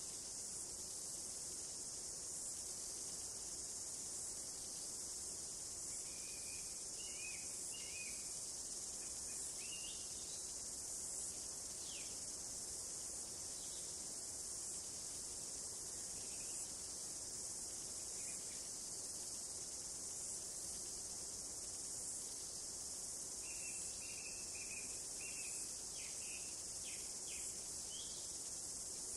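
A steady, high-pitched chorus of insects trilling without a break, with a few short bird chirps and quick falling calls in clusters, mainly about a quarter of the way in and again near the end.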